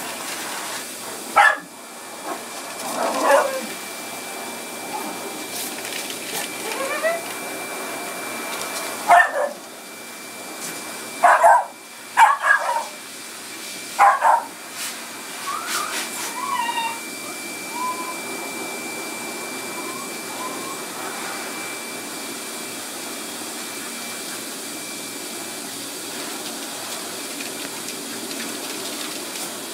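Small dogs barking sharply in play, about half a dozen loud barks in the first half and softer short yips and whines after, over a steady machine hum.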